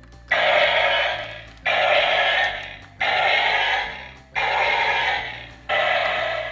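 Electronic sound effect from a Power Rangers toy's built-in speaker, played five times in a row: each burst starts suddenly and fades, about one and a third seconds apart.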